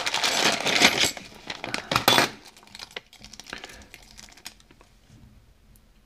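Clear plastic bag crinkling as it is unwrapped for about two seconds, then fading to quieter scattered light clicks and taps as the contents are handled.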